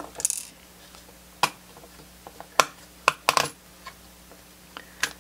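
About half a dozen separate sharp clicks and taps as the plastic case of a soldering station is handled and its front panel is worked loose from the circuit board.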